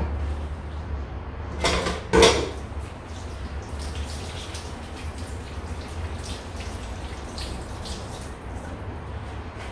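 Kitchen tap water running and splashing into a stainless steel sink while things are rinsed, with scattered light clatters of metal ware and two louder splashes about two seconds in. A steady low hum runs underneath.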